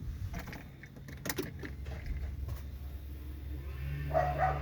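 A few short clicks and taps at the car's multimedia head unit. Near the end the unit comes on through the car speakers, with a steady low hum and a voice starting to play.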